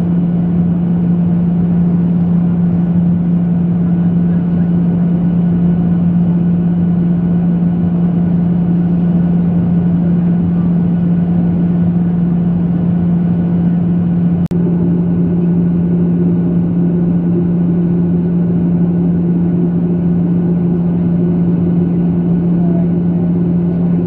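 Steady cabin drone of a Boeing 737 jet airliner in cruise, heard from a window seat over the wing, with a strong steady low hum. The sound drops out briefly about fourteen seconds in, where the recording cuts, and then carries on.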